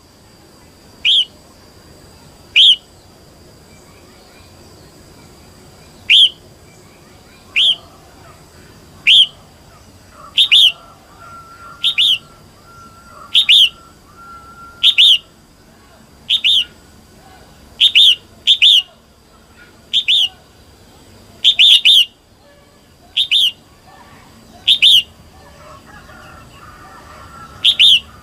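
Female red-whiskered bulbul giving short, sharp calls about every second and a half, now and then in quick pairs or threes, with a gap of a few seconds early on. These are calls of the kind used to stir up young birds and males. Fainter chirping from other birds lies underneath.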